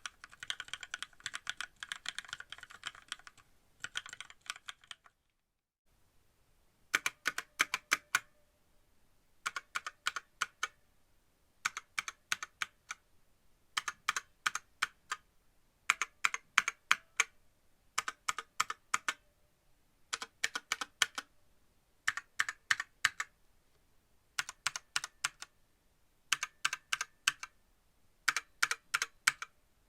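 Typing on a WENRUI WR63 mechanical keyboard with lubricated red linear switches. The first few seconds are fast, continuous keystrokes. After a brief pause come short runs of several quick keystrokes, each about a second long, repeating roughly every two seconds.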